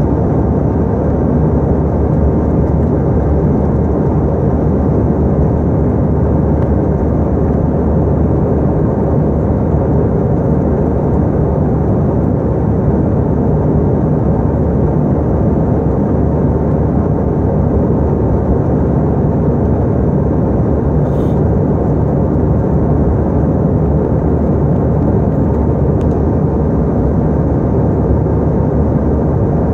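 Steady, loud drone of an airliner's engines and rushing air, heard inside the passenger cabin in flight.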